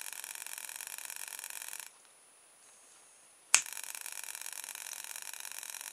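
A small vibrating toothbrush motor, driven by a sound-activated light's circuit, buzzing with a steady whine. It cuts out just under two seconds in as the circuit's timer switches off. A sharp click comes about a second and a half later, and the motor starts buzzing again at once.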